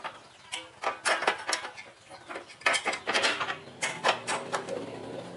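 Irregular metallic clinks and knocks, a dozen or so short sharp ones, as the motorbike's chrome rear rack and nearby metal parts are handled and knocked against each other.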